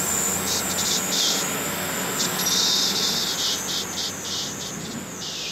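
Class 150 diesel multiple unit pulling out of the station, its underfloor diesel engines running under power and its wheels rolling over the rails in a steady wash of noise with a high hiss, easing a little near the end.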